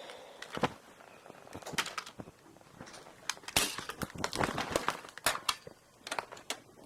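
A scattered series of sharp clicks and knocks, coming irregularly and bunching together in the middle.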